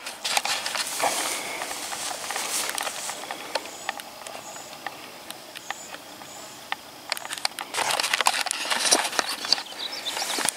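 Footsteps swishing through tall grass, with clothing and gear rustling and knocking against a chest-mounted camera. It quiets for a few seconds in the middle, where faint high chirps come through, then the rustling and steps pick up again.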